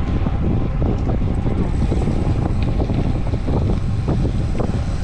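Wind buffeting the microphone of a camera on a road bike on a descent: a steady low rumble with scattered small ticks and rattles from the bike on the road.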